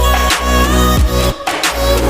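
Background music with a steady beat: heavy bass, regular kick drum hits and a synth melody, in a hip hop style.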